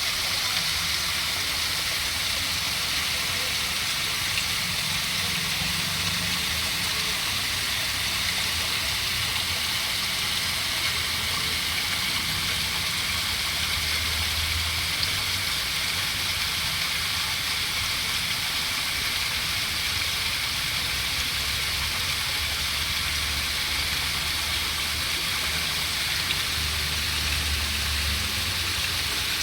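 Steady rushing water, an even hiss that does not let up, with a low rumble underneath that swells and fades.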